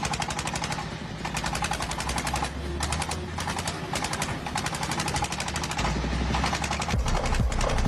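Engine running with a rapid, rattling beat of sharp exhaust pulses, an engine that will not shut off.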